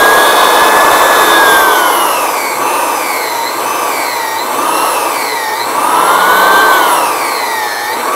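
Electric floor edger sander running with its spinning rubber pad pressed onto abrasive paper, sanding down the inside of the pad to dress it. The motor's whine rises and dips over and over as the load on the pad changes.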